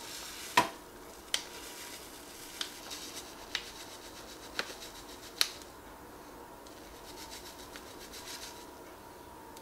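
Dry seasoning shaken from a paper packet into a small glass bowl. The paper rustles with a soft hiss of pouring powder and about six sharp taps in the first five seconds, the loudest about half a second in; the pouring comes back faintly near the end.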